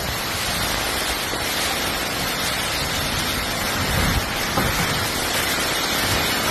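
Hurricane-force wind and driving rain: a loud, steady rush of noise, with gusts buffeting the microphone, strongest about four seconds in.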